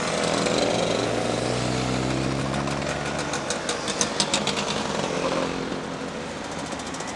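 Motor scooters and a motorcycle riding past in a steady stream. A motorcycle's engine note passes close in the first few seconds, then a scooter's rapid popping exhaust goes by about four seconds in.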